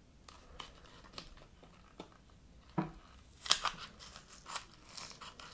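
Light plastic clicks, scrapes and crackles as a hand tool prises the electronic speed controller (ESC) up off an RC truck's plastic chassis, with a cluster of sharper clicks about three and a half seconds in.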